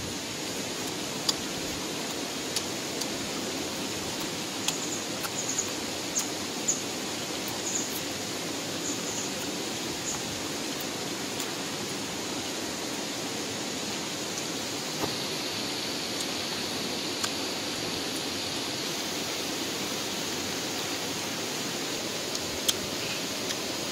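Steady hissing outdoor background noise, with a few scattered soft clicks and faint short high chirps; a steady high-pitched tone joins about fifteen seconds in.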